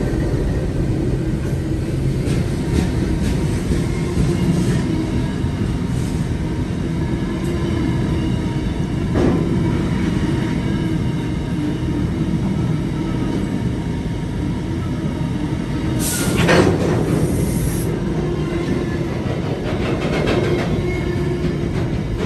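Electric passenger train running at a station: a continuous rumble with a steady motor hum. A brief sharp, high-pitched squeal comes about three quarters of the way through.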